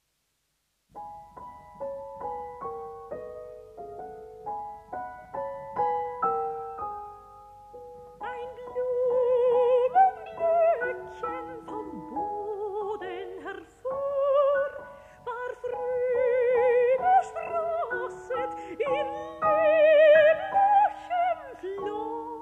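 A German art song for soprano and piano in a 1957 recording. After about a second of silence, the piano plays a light introduction of short, separate notes. At about eight seconds a soprano enters with wide vibrato over the piano accompaniment.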